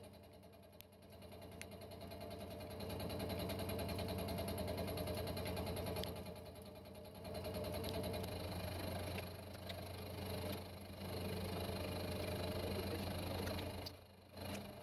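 Milling machine spindle turning a Suburban Tool fly cutter with a 7.5-inch bar as it takes a light face cut across a metal plate: a steady machine hum that drops away briefly near the start, again around six seconds in, and just before the end.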